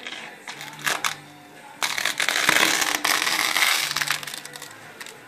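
Adhesive window tape being ripped off the glass by a cat: a short rip about a second in, then a longer, louder tearing that lasts about two seconds.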